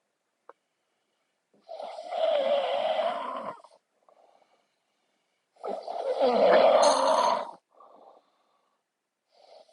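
Heavy snoring: two long snores of about two seconds each, with a wavering pitch and short soft breaths between them; another snore begins near the end.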